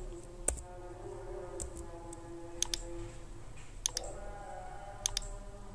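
Computer mouse clicking about five times, several as quick double clicks, over a faint steady background hum.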